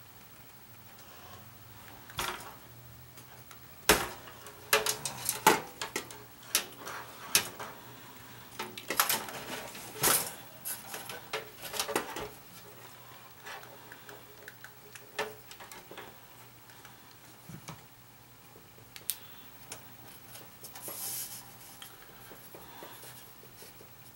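Metallic clinks and clatter from handling a disassembled toaster's sheet-metal chassis and element frame, in irregular clusters through the first half and a few scattered clicks later, over a faint steady low hum.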